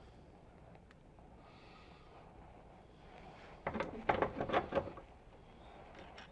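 Cast-iron bench vise being worked by its handle: a quick flurry of metallic clicks and clanks lasting about a second, a little past halfway through.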